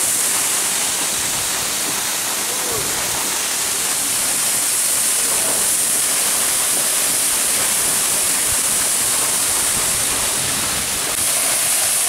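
Waterfall pouring down a rock face and crashing onto rocks and into a pool: a steady, loud rush of water, a little louder near the end.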